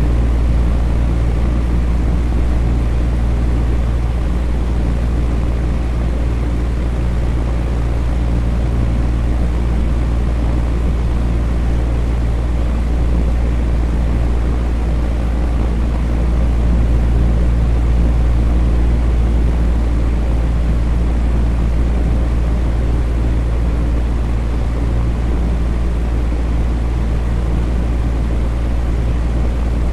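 Electric fan running steadily: a constant low hum under an even rush of moving air.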